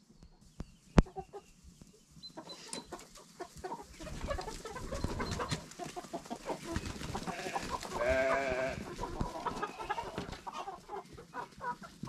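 Flock of chickens clucking and scuffling as they hurry out over straw, with a goat bleating once, a wavering call about a second long, about eight seconds in. A single sharp knock about a second in.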